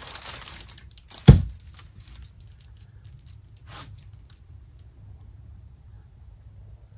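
Wax paper crinkling, then one sharp, loud knock about a second in, followed by a few faint clicks and another brief rustle, as glued neck laminates are handled and clamped on the bench.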